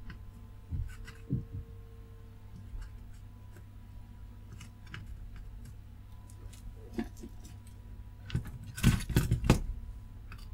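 Light metallic clicks and taps of tweezers and a soldering iron tip working a part out of a circuit board, with a quick run of louder clicks about nine seconds in, over a low steady hum.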